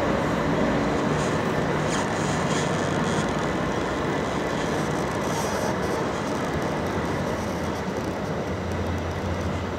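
Two coupled Class 377 Electrostar electric multiple units running away over the pointwork: a steady noise of wheels on rail with scattered clicks, slowly fading.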